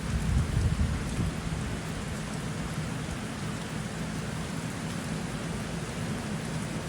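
Steady rain falling, with a low rumble in about the first second.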